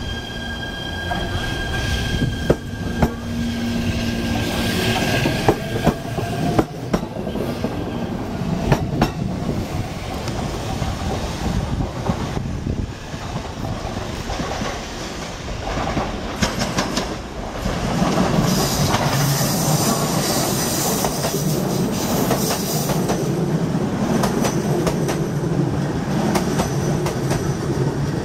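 E127 series electric train running on the rails, its wheels clicking over rail joints. A steady high whine sounds in the first several seconds, and the running noise grows louder about eighteen seconds in.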